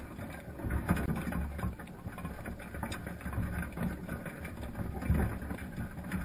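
Muffled underwater audio from a GoPro in its waterproof housing inside a wire crab pot: irregular clicks and taps as Dungeness crabs crawl over the pot and camera, over a low rumble.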